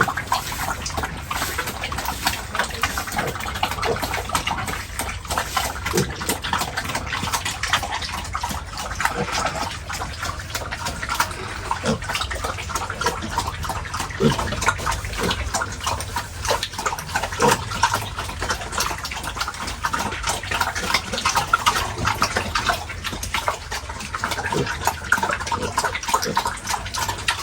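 Pigs in a pen, with a steady run of wet splashing, slurping and clicking and a few short grunts or squeals.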